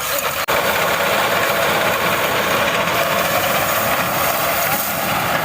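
Tractor engine running steadily under load, with a dense, even mechanical noise, while the tractor works a wheat field with a reaper; the sound drops out for an instant about half a second in.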